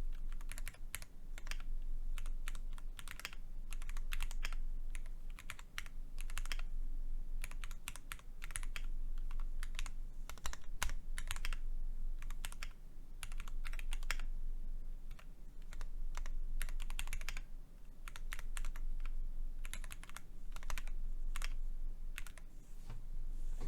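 Typing on a custom Isabell60 keyboard with Cherry MX2A Black linear switches in a top-mounted aluminium plate and GMK-style keycaps: a dense stream of keystroke clacks that swells and dips in runs of a few seconds.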